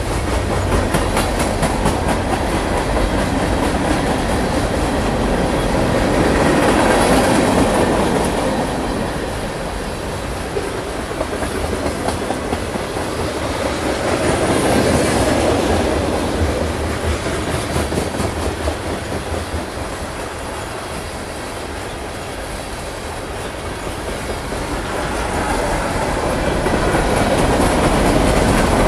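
Freight cars of a long mixed freight train rolling past close by: a steady rumble of steel wheels on rail with rapid clicking over the rail joints, growing louder and quieter in slow waves.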